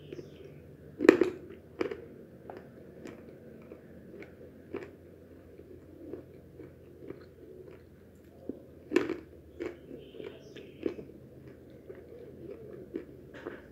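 Crunchy coated peanuts (Japanese-style peanuts) being bitten and chewed. There are two loud bites, about a second in and about two-thirds through, with many smaller crisp crunches between them.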